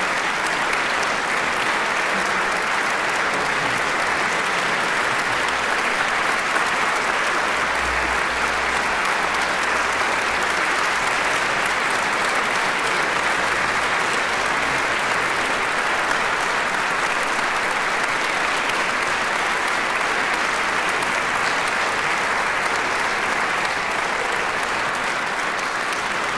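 Audience in a concert hall applauding steadily.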